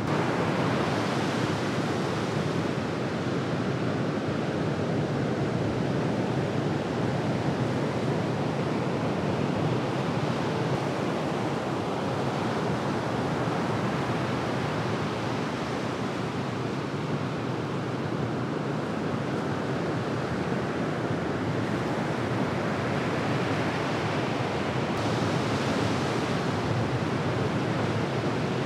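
Ocean surf breaking on a beach: a steady rushing wash of waves, swelling brighter about a second in and again near the end.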